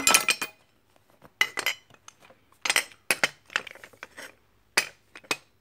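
Old rusty steel hand tools, such as pipe wrenches, tin snips and shears, clinking and clanking against one another as they are picked up, shifted and set down in a pile, in an irregular run of sharp metallic knocks.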